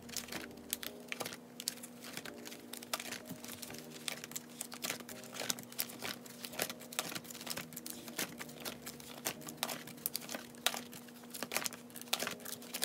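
Plastic photocard binder sleeves crinkling and rustling as the pages are turned by hand, with many small irregular clicks and taps of the sleeves flapping against each other.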